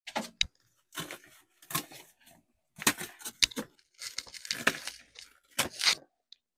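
Packaging being torn open and crinkled by hand: a string of rough ripping bursts over several seconds.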